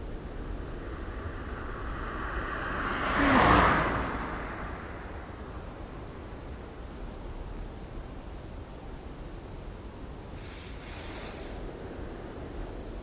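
Steady background ambience noise with a single whoosh that swells and fades about three to four seconds in, and a fainter short hiss near the end.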